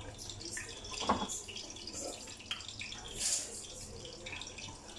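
Chopsticks stirring a thick ketchup, garlic and vinegar sauce in a stainless steel pot on the stove: scattered taps and scrapes against the pot over the wet sound of the sauce.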